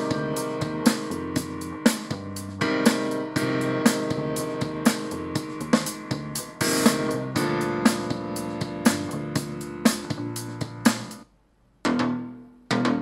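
iGear Delight mini soundbar playing a demo music track, with a drum hit about once a second over guitar and keys. About 11 seconds in the track ends, there is a brief gap, and the next track starts with sharp hits.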